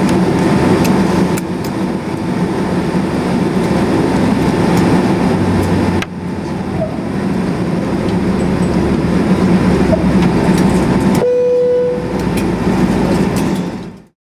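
Cabin noise of a Boeing 767-300 as heard from a window seat over the wing: the jet engines run at low power with a steady hum. The noise changes abruptly at about 6 and 11 seconds in, a short steady tone is held about 11 seconds in, and everything fades out just before the end.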